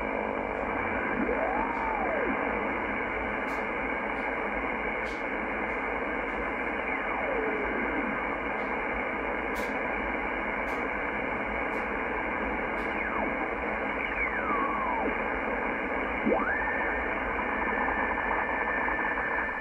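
Yaesu FTdx10 shortwave receiver putting out steady hiss and static in upper sideband while being tuned across the 19-metre band. Whistles glide up and down in pitch as the dial passes signals. Near the end a steady whistle settles in as it lands on a weather fax station.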